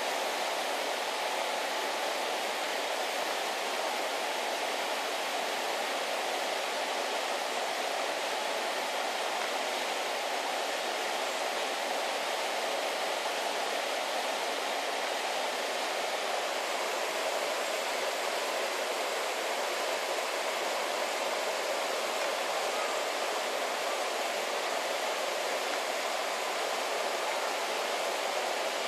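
Steady rushing of a small waterfall and river current, an even hiss that does not change.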